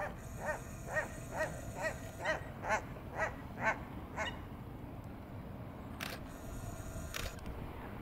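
A water bird calling in a quick series of about nine short calls, roughly two a second, then falling silent. Two sharp clicks follow near the end.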